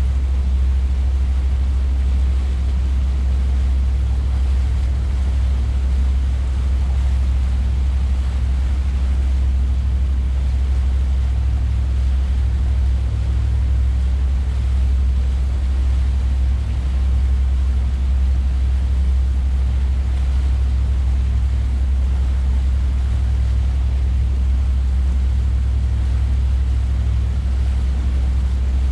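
Sea Ray 330 Sundancer cruiser under way with its MerCruiser 454 (7.4 L) inboard power: a loud, steady low rumble of engine, wind and water rushing past the hull.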